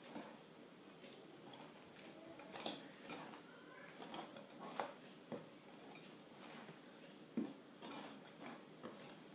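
Wire whisk scraping and tapping against a glass mixing bowl as a batter of whipped egg whites and flour is folded, with quiet, irregular clinks.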